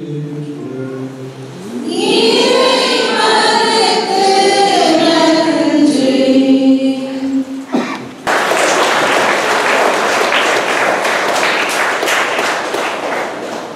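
Choir singing with held notes that ends about eight seconds in, followed at once by applause from the congregation that fades near the end.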